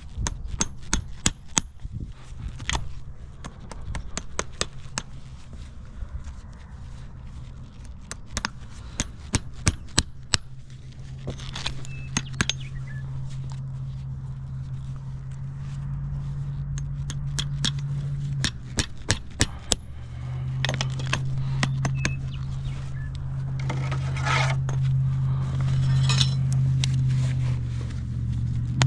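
Irregular sharp metallic clicks and clinks, like hand tools being handled, over a steady low hum that grows louder in steps partway through.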